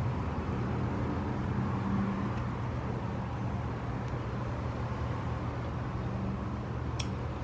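A steady low hum, like a vehicle's engine idling, with no clear events apart from one short click near the end.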